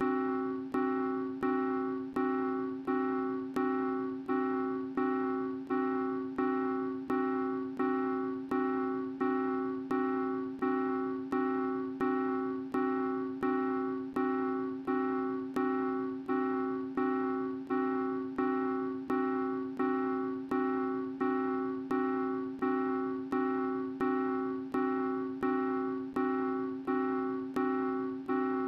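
A piano chord struck over and over at an even pace, about three times every two seconds, the same notes each time and each dying away before the next: a short cartoon music cue looped.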